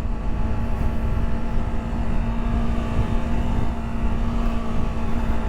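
Yamaha R3 motorcycle's parallel-twin engine running at a steady speed, its note holding constant, under heavy low wind rumble on the helmet microphone.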